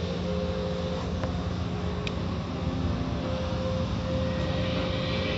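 Automatic car wash heard from inside a car: water spraying on the windshield and cloth brush strips washing over the glass, over the steady hum of the wash machinery.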